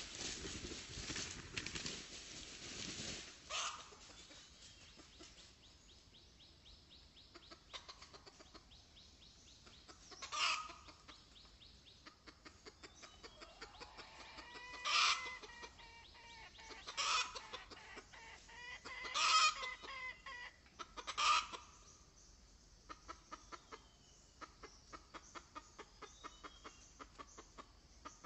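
Junglefowl clucking: about six short calls a few seconds apart. A rustle of dry leaves fills the first few seconds, and faint rapid ticking runs under the quieter stretches.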